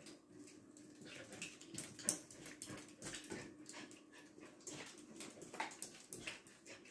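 Corgi spinning after its tail on a wooden parquet floor: claws clicking and scrabbling on the wood in quick irregular taps, the sharpest about two seconds in, with small dog sounds among them.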